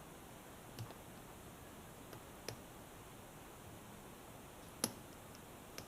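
Faint, scattered clicks of lock-picking tools working in a Master Lock 140 padlock: about five small metallic clicks spread over several seconds, the sharpest nearly five seconds in.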